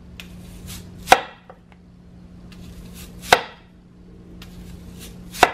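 Chef's knife slicing a yellow onion into rings on a wooden cutting board. Each slice ends in a sharp knock of the blade on the board, three times about two seconds apart, with faint crisp crackle as the blade goes through the onion.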